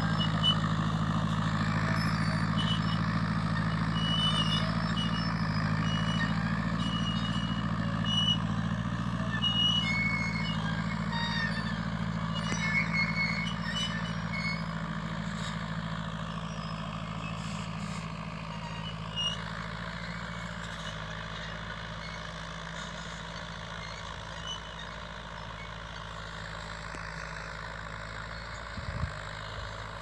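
Crawler tractor engine running steadily as it pulls a disc harrow across a field, fading gradually as it moves away. Short high peeps repeat about once a second through the first half.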